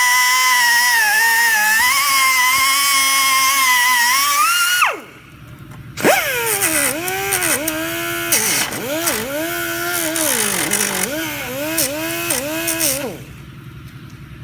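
Powered cutoff tool cutting through the door-latch shaft. Its steady whine winds down abruptly about five seconds in. It starts again about a second later, and the pitch dips again and again as the wheel bites into the metal, until it stops near the end.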